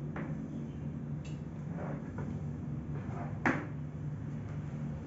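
Hard plastic knocks and scrapes as an office chair's mesh backrest is handled and pressed against the seat frame, with one sharper knock about three and a half seconds in, over a steady low hum.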